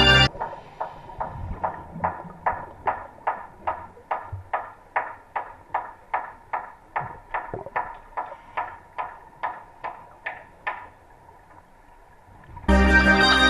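Underwater emergency recall signal: a steady run of short ringing pulses, about two and a half a second, that stops near the end. It is the signal to end the dive at once, meaning a diver has gone off alone or there has been a diving accident.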